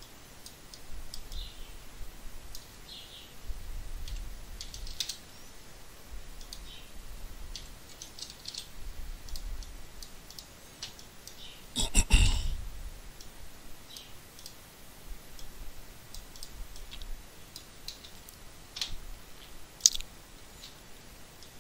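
Scattered computer mouse clicks and keyboard taps, with one louder knock about twelve seconds in.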